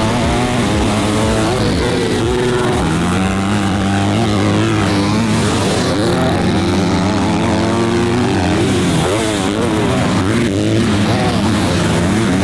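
Motocross bike engines revving up and easing off over and over as they are ridden around the track.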